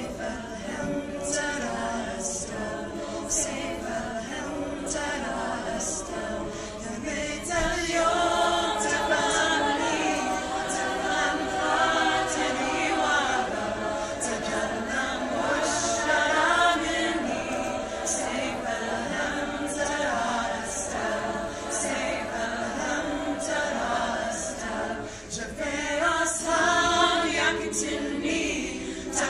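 High-school choir singing, growing louder about eight seconds in.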